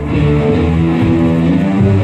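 Live rock band playing, electric guitars and bass carrying a riff of held notes. No singing is heard.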